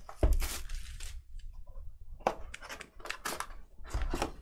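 Panini Prizm basketball trading cards being handled on a table: short bursts of sliding and rustling, with a soft thump at the start and another about four seconds in.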